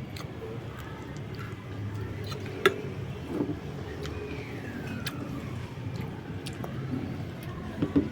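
Restaurant background noise: a steady low hum with a passing vehicle whose pitch falls midway, and a few sharp clicks, the loudest about two and a half seconds in.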